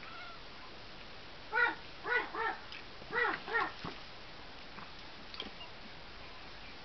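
Small dog barking: five quick, high-pitched barks over about two seconds, starting a second and a half in.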